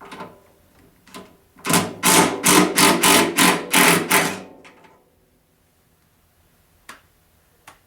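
A power tool run in about eight short, loud bursts in quick succession, lasting about two and a half seconds, on the snowthrower's auger-shaft fittings. A few light clicks come before and after.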